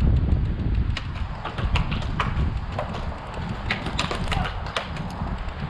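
Mechanical paintball markers firing in scattered, irregular sharp pops, with wind rumbling on the microphone.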